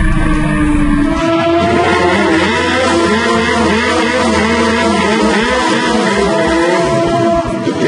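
Suzuki GSX-R1000 K5 inline-four engine: first heard onboard with heavy wind noise, then, after a cut about a second in, revved up and down over and over during a water-box burnout.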